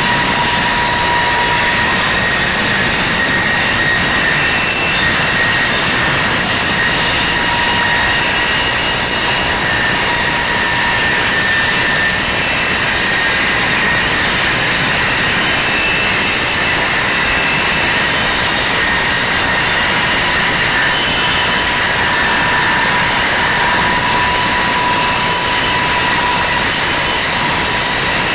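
Union Pacific manifest freight train's cars rolling past on steel wheels, a loud steady rumble and clatter. Thin high squealing tones come and go over it.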